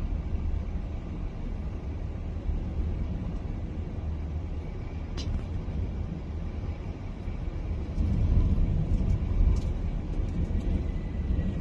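Low rumble of a jet airliner's engines mixed with wind buffeting the microphone, growing louder about eight seconds in. A few sharp clicks are heard.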